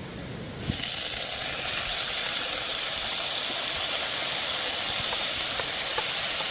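Food sizzling in a hot pan over a campfire. A loud, steady sizzle starts suddenly about a second in, as the food goes into the hot fat.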